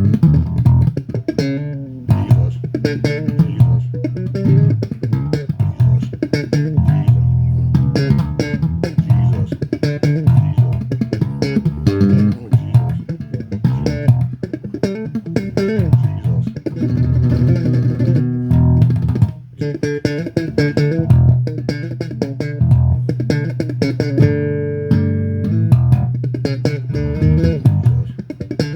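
Electric bass guitar playing a worship tune with quick plucked notes and a heavy low end; a chord rings on steadily for about a second near the end.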